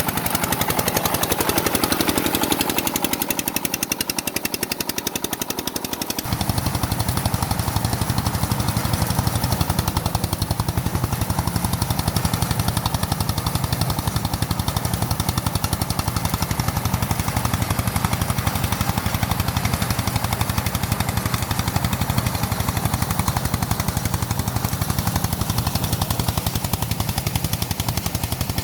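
A small engine running steadily as a rapid, even chugging of closely spaced pulses. Its low, deep part grows much louder about six seconds in.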